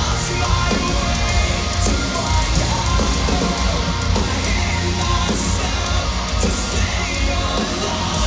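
Live heavy metal band playing loud and dense, with a heavy low end.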